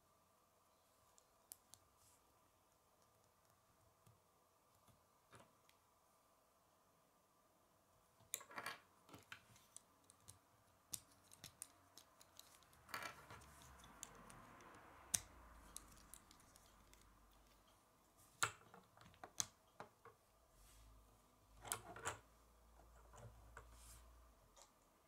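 Faint, irregular clicks and taps of plastic Lego bricks being handled and pressed together, mostly in the second half, with a soft rustle of handling about halfway through.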